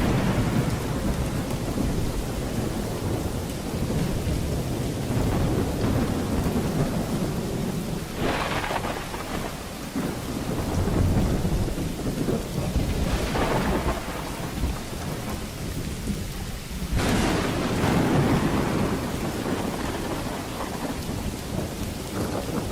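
Thunderstorm: steady heavy rain with rolling thunder underneath. Swells of louder rain or thunder crack through about 8 and 13 seconds in, and the strongest comes about 17 seconds in.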